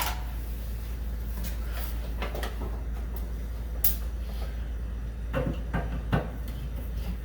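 Scattered light clicks and knocks of hands handling parts of a wired smoke alarm, with one sharper click about four seconds in and a couple more near the end.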